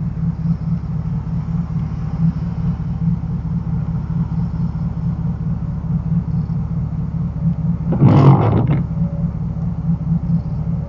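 Vehicle engine idling with a steady low, pulsing rumble. About eight seconds in, a brief louder rush of noise lasts under a second.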